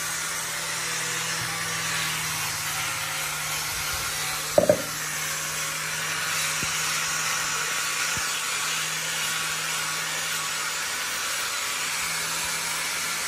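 Small handheld power tool running steadily as it works along a wooden board, a constant hiss over a low hum. A sharp double knock about four and a half seconds in.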